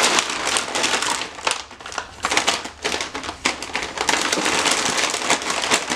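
Plastic snack wrappers and packets crinkling and rustling continuously as the snacks are shuffled by hand.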